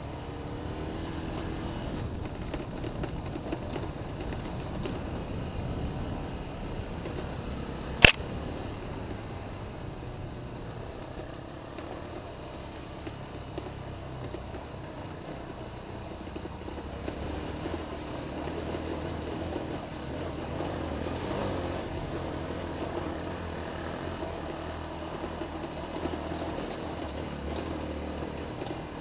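Honda XR 250 single-cylinder four-stroke dirt bike engine running as it is ridden, with one sharp knock about eight seconds in.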